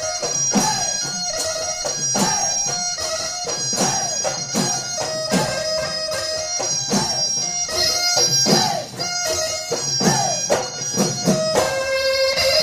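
Assamese Bihu Husori folk music: dhol drums beaten in a fast, driving rhythm, with ringing cymbals and a reedy wind instrument holding a steady note.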